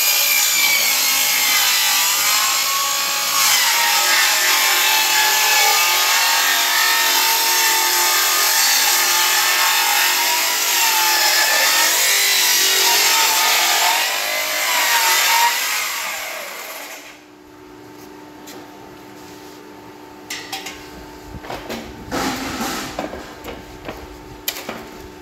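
Electric circular saw on a sliding carriage ripping lengthwise through a green bamboo pole: a loud, high whine that wavers in pitch as the blade loads up. About two-thirds of the way in it stops, leaving a faint steady hum, then a few knocks and clatters as the split bamboo is lifted on the steel rack.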